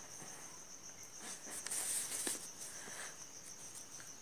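Faint, steady high-pitched trill of crickets, with a soft rustle about two seconds in.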